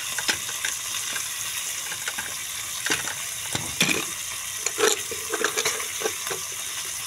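Goat meat and intestine pieces frying in oil in a pan over a gas flame: a steady sizzle, with a few sharp clicks now and then.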